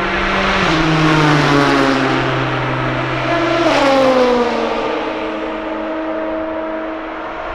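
Race car engines passing at speed, each engine note dropping in pitch as the car goes by: one about a second in and a louder one about four seconds in, with another engine running steadily underneath.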